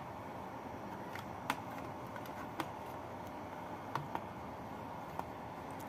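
A handful of short, light clicks and taps from equipment being handled close to the microphone, spread irregularly over a steady faint background hiss.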